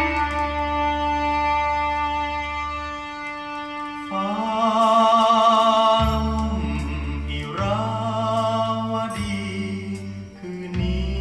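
A Thai song played from a vinyl record over a hi-fi system: long held instrumental notes, then a male singer comes in about four seconds in, singing with a strong vibrato over the accompaniment.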